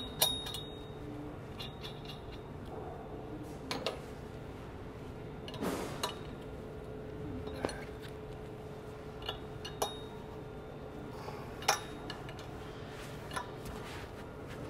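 Sharp metal clinks and clicks from a wrench on the jam nuts of a conveyor belt cleaner's spring tensioner as the nuts are tightened down on the threaded rod. The clinks are irregular, one every second or two, the loudest just after the start and about two-thirds through, over a faint steady hum.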